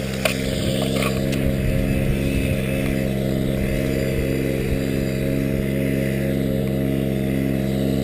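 An engine running steadily at an even speed, a constant low drone, with a few light clicks in the first second.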